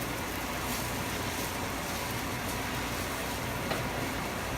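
Rice and seasoning sizzling in a hot pan: a steady hiss with no breaks.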